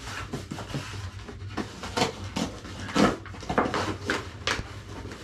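Paper rustling and crinkling in irregular bursts, with small knocks, as birthday cards are handled and opened; the loudest handling comes about three seconds in.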